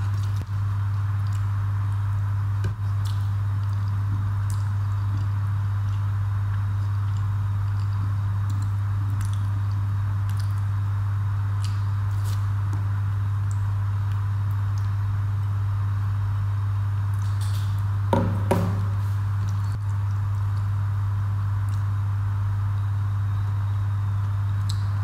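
A steady low hum throughout, with faint soft squishes and small clicks of rice being mixed and eaten by hand. A short vocal sound about three-quarters of the way through.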